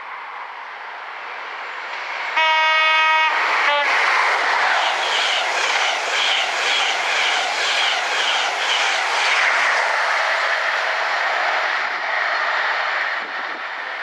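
An express passenger train approaches and sounds its horn, one loud note for about a second followed by a brief second note. It then passes at speed with a rhythmic clickety-clack from its wheels, dying away near the end.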